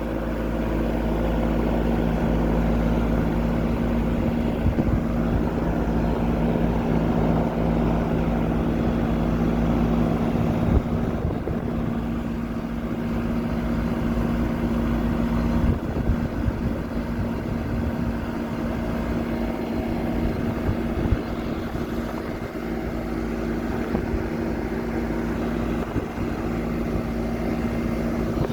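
Central air conditioner's outdoor condensing unit running steadily: a constant compressor hum over the whir of the condenser fan. The system has been running non-stop and struggling to cool the house on a hot day.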